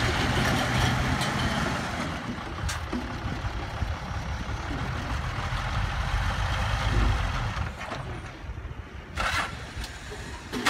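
Diesel dump truck engine running steadily while the tipper body is raised and the load of dirt is dumped, with a noisy rush over the engine hum. The engine is louder at the start and again around the middle, and quieter near the end.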